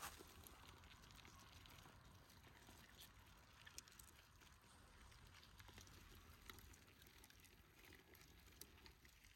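Near silence: faint outdoor background with a few soft, scattered ticks.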